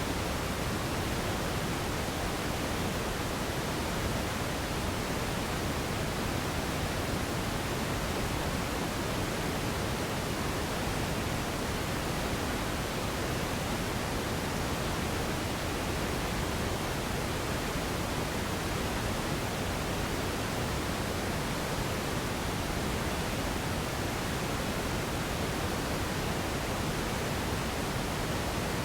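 Steady radio static: an even hiss with no tones, no clicks and no changes in level.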